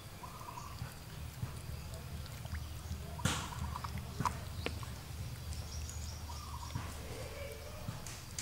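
A metal spoon clinking against a ceramic soup bowl a few times as fish is scooped out, over faint animal calls and a low steady hum.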